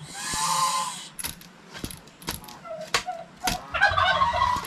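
Ducks giving raspy quacks, one in the first second and another near the end, with a series of sharp clicks in between.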